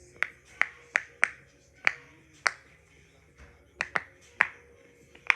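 Silicone owl pop-it fidget toy being pressed, its bubbles popping inside out in about ten sharp, uneven clicks.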